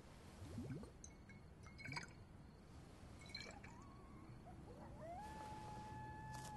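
Domestic cat meowing softly: a short rising meow around the middle, then a long drawn-out meow near the end. A few faint knocks in the first couple of seconds.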